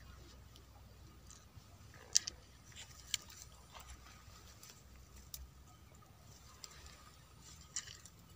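A few short sharp clicks and light rustles, the loudest about two seconds in, again about a second later, and near the end, over a quiet background hum.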